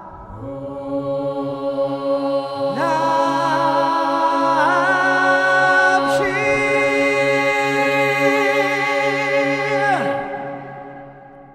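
Unaccompanied choral chant: voices holding long notes over a steady low drone, a new voice sliding up into the chord about three seconds in, then the chant ending about ten seconds in and fading away.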